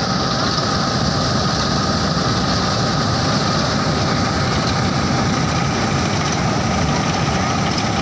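Combine harvester running steadily: its engine and machinery drone evenly, with a steady high whine over the top.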